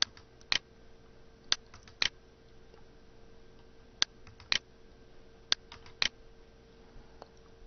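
Computer mouse-button clicks: sharp, short clicks in four pairs about half a second apart, with a few fainter ticks, over a faint steady hum.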